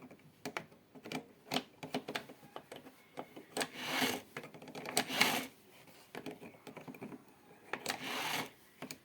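Pliers forcing the centre screw out of the small idler roller of a Bosch PBS 75A belt sander: a string of irregular metal clicks with a few longer scraping, grinding swells as the screw works loose.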